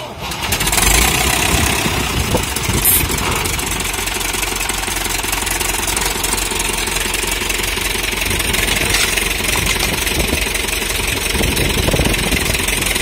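Old blue Ford farm tractor's engine rising to a loud run about half a second in, then running steadily.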